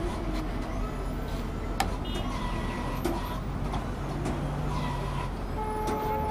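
Road traffic: a steady rumble of vehicle engines with scattered clicks. A faint steady tone comes in near the end.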